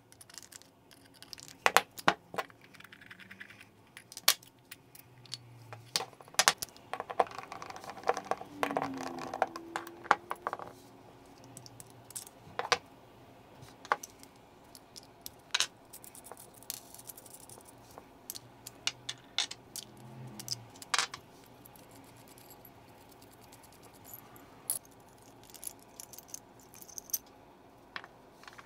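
Scattered clicks and small metallic clinks of a guitar pedal's diecast aluminium enclosure being taken apart by hand: a screwdriver backing out the bottom-plate screws, screws and plate set down, and a nut driver on the jack nuts. A scraping, squeaky passage comes about a third of the way in.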